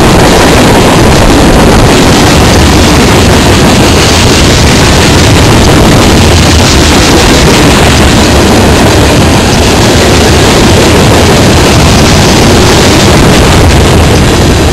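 Freight train tank cars rolling past close by: a steady, very loud rumble of steel wheels on rail that holds near the top of the recording level, overloading the microphone.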